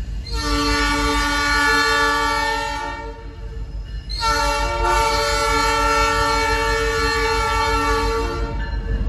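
Diesel locomotive air horn sounding two long blasts of a multi-note chord, the second longer than the first, over the low rumble of open-top hopper cars rolling past on the rails.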